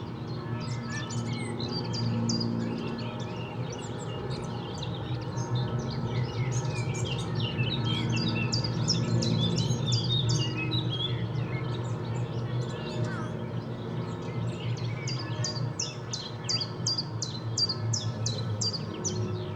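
Songbirds chirping and twittering over distant church bells ringing and a low city hum. Near the end one bird repeats a short, sharp note about three times a second.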